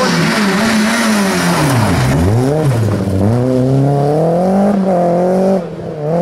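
Rally car engine at high revs. About two seconds in the revs fall sharply, then climb steadily as the car accelerates away, with a brief dip near the end for a gear change.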